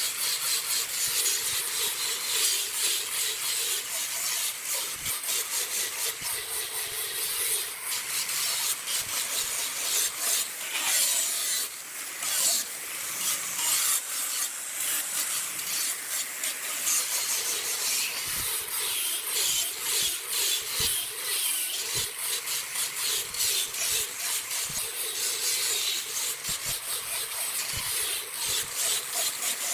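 A tool scraping against wood spinning on a wood lathe. It makes a continuous grainy rasping that eases briefly about twelve seconds in.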